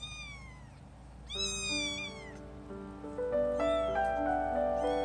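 A lilac point Siamese kitten meowing three times, high-pitched calls that each fall in pitch, the second the loudest. Background music with steady notes comes in about a second and a half in and grows louder.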